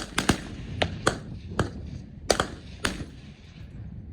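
Gunfire at a shooting range: about eight sharp gunshots, unevenly spaced and of differing loudness, as from several guns firing at once rather than one steady automatic burst.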